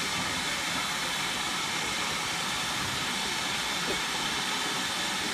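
Steam locomotive, a GWR Manor class 4-6-0, hissing steam steadily while it stands ready to depart, without the beat of exhaust.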